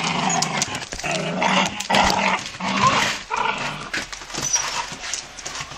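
Jagdterrier growling in several spells while nosing at a crate, worked up over a hare; the sound weakens toward the end.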